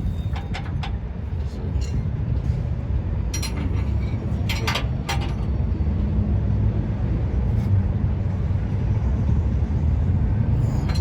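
Hand tools clicking and clinking a few sharp times, in two small clusters about half a second in and about four to five seconds in, over a steady low rumble.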